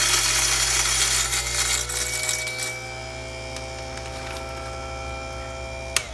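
Jericho-type electric burr coffee grinder with a direct-drive motor, grinding coffee beans with a loud gritty noise. The grinding thins out after about two and a half seconds as the beans run through, and the motor's whine rises a little in pitch and then holds steady. It is switched off with a sharp click near the end.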